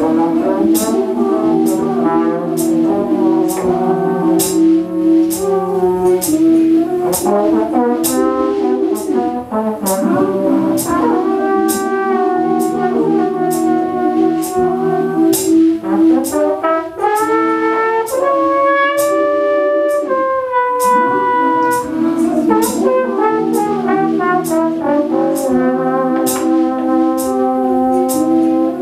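Trombone played live over its own looped layers: held low brass notes repeat underneath while a melody line moves above with slide glides up and down. A steady beat of sharp clicks runs about twice a second.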